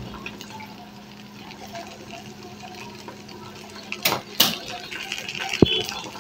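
Potato-and-egg tortilla frying quietly in a pan, with two sharp clatters of kitchenware about four seconds in and a single knock near the end.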